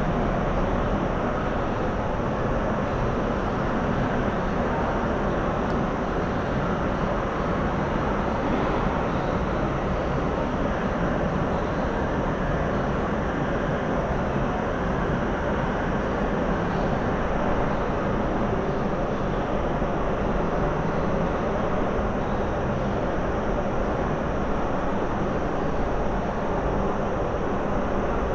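Steady, unbroken rumbling noise with no distinct events.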